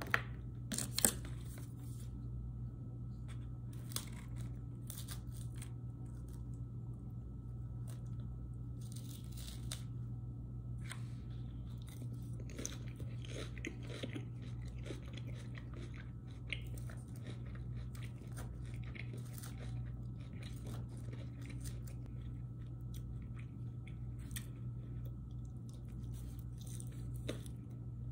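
Close-up crunching and chewing of a leafy green salad, with scattered clicks of a plastic fork in the bowl, over a steady low hum.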